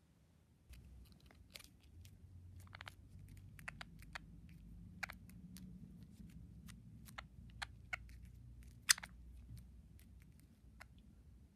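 Budgerigar pecking and scrabbling at a finger on a plastic TV remote: scattered sharp clicks and taps of beak and claws, the loudest about nine seconds in, over a low handling rumble that starts just under a second in.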